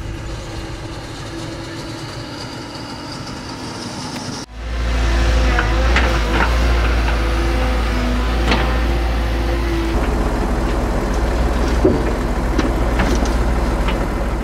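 A tractor's engine runs as it pulls a manure spreader away. About four and a half seconds in, this switches abruptly to a louder, steady low rumble from a CAT 318F excavator's diesel engine. The excavator's rake bucket gives several sharp metallic clanks as it works a compost heap.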